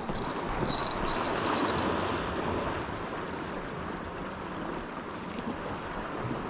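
Surf washing steadily against the rocks of the shoreline, with some wind on the microphone.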